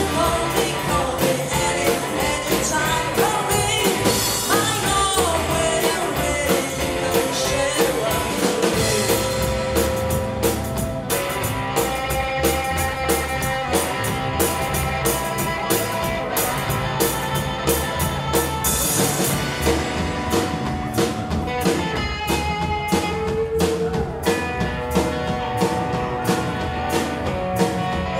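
Live rock and roll band playing: a woman singing, electric guitar, upright double bass and drum kit keeping a steady beat.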